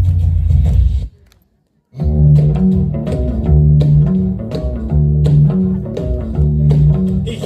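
Recorded dance music: the song cuts off about a second in, there is about a second of silence, and then a new track starts with a repeating bass line and plucked guitar notes.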